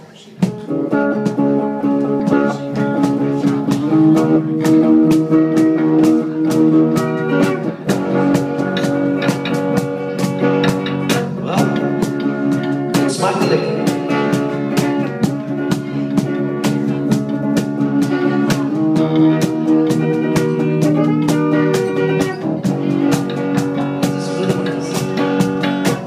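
Live band playing a blues-style tune with guitar and a drum kit keeping a steady beat; the music kicks in abruptly right at the start.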